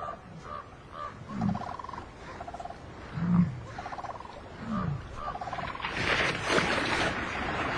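American bison giving low grunts that fall in pitch, about every one and a half seconds. A short chattering trill repeats in the background, and a burst of rushing noise rises about six seconds in.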